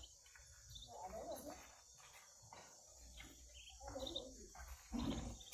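Steady, high-pitched insect chirring, like a cricket chorus, with a few soft knocks and rustles in between, the loudest about five seconds in.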